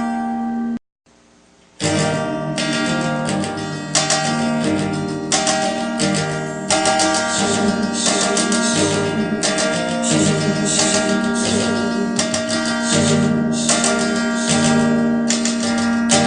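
Acoustic guitar strummed in a steady rhythm, the instrumental ending of the song after the last sung line. The sound cuts out for about a second near the start, then the strumming resumes.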